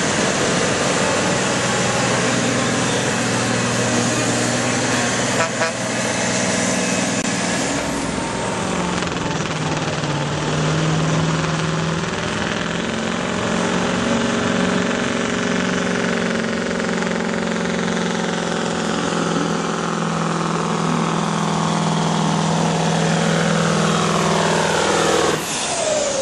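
Heavy diesel truck engines running flat out under load while pulling a weight-transfer sled. Near the end a truck passes close and its engine note drops sharply.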